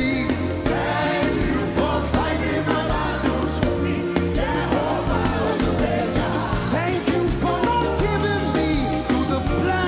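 Gospel worship music: voices singing over a band with a steady bass line.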